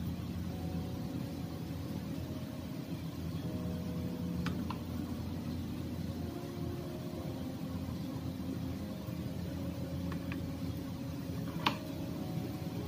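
Steady low mechanical hum throughout, with a faint click about four and a half seconds in and a sharper light knock near the end as dishes are set down on the tray.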